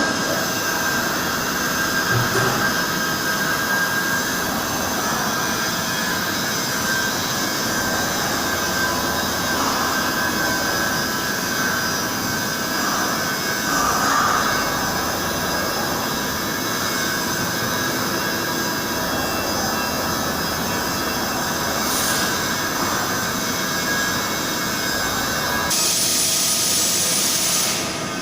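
Hartford CNC milling machine running a 2D milling job: a steady spindle whine over cutting noise, with a brief louder hiss near the end.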